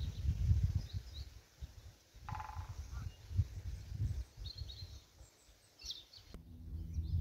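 Wind buffeting the microphone in gusty low rumbles, with small birds chirping now and then.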